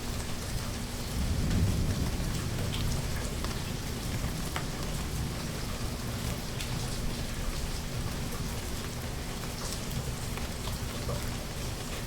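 Steady heavy rain with scattered individual drips, and a low roll of thunder that swells about a second in, then fades back under the rain.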